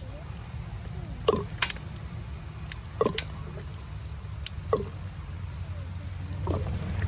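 A length of PVC pipe being cut by hand: sharp clicks a second or two apart, several with a short falling squeak of the plastic, over a steady high insect buzz and a low rumble.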